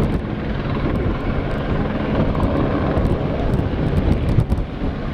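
Engine noise, a continuous low rumble from a vehicle or aircraft that is not in view.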